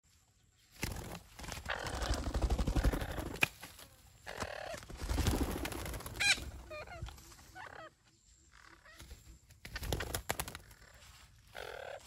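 Green parakeets squawking in harsh, irregular bursts, with a quick run of warbling calls that rise and fall about six seconds in.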